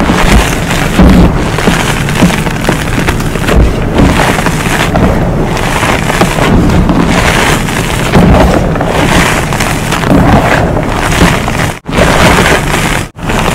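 Hands crushing and crumbling dyed gym chalk reforms: gritty chalk crunching and pouring through the fingers, loud and continuous. The sound cuts out sharply twice near the end.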